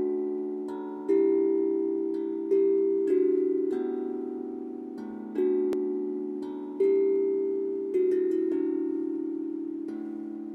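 Steel tongue drum struck with rubber-tipped mallets, playing a slow melody. Each note starts sharply, then rings on and slowly fades under the next.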